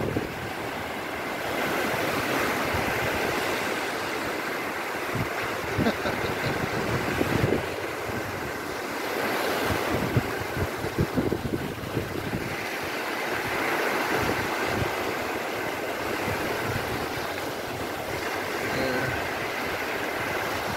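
Small sea waves washing and breaking in shallow water, with wind buffeting the microphone in irregular gusts.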